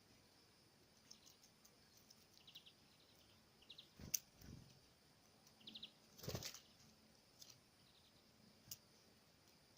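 Faint birds at a feeder: tits giving short, high, stuttering calls, with a few sharp clicks and knocks or wing rustles in between, the loudest about six seconds in.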